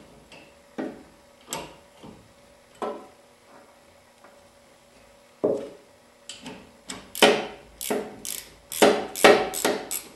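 Ratchet wrench clicking as it is swung back and forth, undoing a nut that is turning its stud out of the top of a Triumph Spitfire's rear differential. Single clicks come well apart at first; from about halfway the clicking is faster and louder, about three clicks a second.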